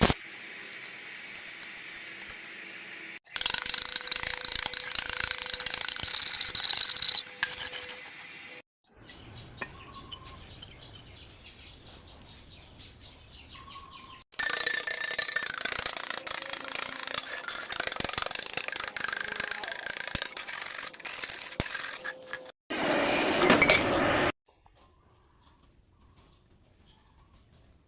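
Metal gears and mechanism of a homemade hand-cranked rotary drilling machine turning with a rattling mechanical noise. It comes in separate stretches that start and stop abruptly, with quieter gaps between them.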